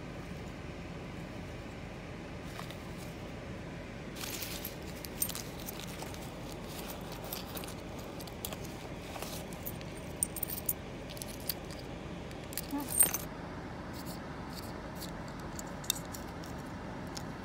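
Hands rummaging in a zippered fabric bag: small hard items such as a clip-on phone lens and its cap click and rattle against each other in scattered bursts, with one louder clatter about thirteen seconds in, over a low steady background rumble.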